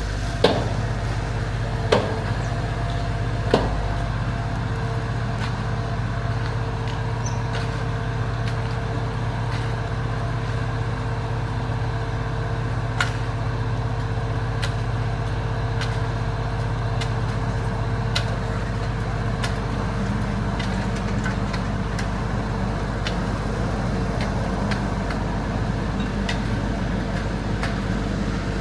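Steady engine running at idle, with a handful of sharp ticks, most of them in the first few seconds.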